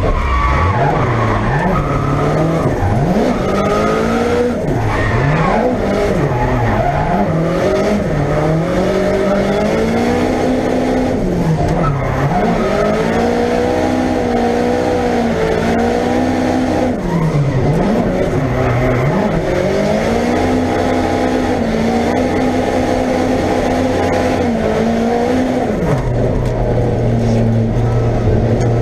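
Opel Ascona drift car's engine heard from inside the cabin, its revs rising and falling over and over under hard driving. Near the end it settles to a low, steady note.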